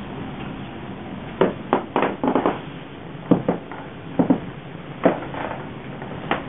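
A series of about ten sharp, irregular knocks and taps over a steady hiss. They come in small clusters, and the loudest is in the middle.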